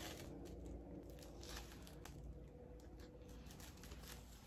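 Faint chewing of a big bite of gyro in pita bread, with a few soft wet clicks from the mouth.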